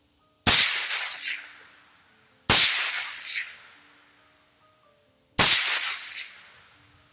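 Three suppressed rifle shots from a 12.5-inch AR fitted with an Otter Creek Labs Polonium full-size suppressor, firing 55-grain V-Max, spaced about two and three seconds apart. Each shot is followed under a second later by a quieter second report.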